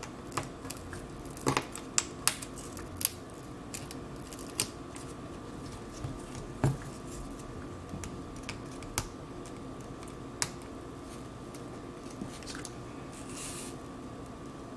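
Scattered sharp clicks and taps of plastic opening picks and a metal pry tool against a cracked iPad's glass and aluminium frame as it is handled on a silicone repair mat, most of them in the first few seconds, over a faint steady hum.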